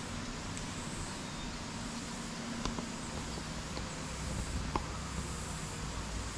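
Steady outdoor background noise with a faint low hum, broken by two faint clicks.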